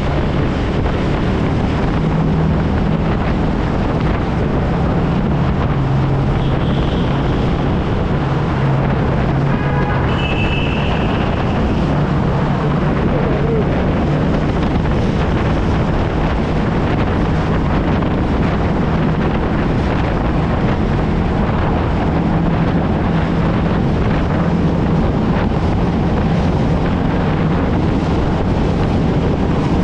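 TVS Ronin's single-cylinder engine running at a steady cruising speed, with wind rushing over the microphone and the road noise filling a tunnel.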